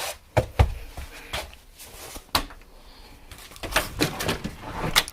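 Footsteps and a few sharp knocks at uneven intervals, spaced out with quiet in between.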